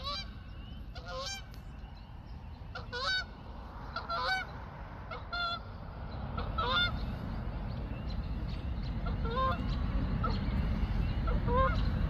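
A pair of geese flying overhead, honking repeatedly: short calls roughly once a second, with a pause of a few seconds in the middle, over a steady low rumble.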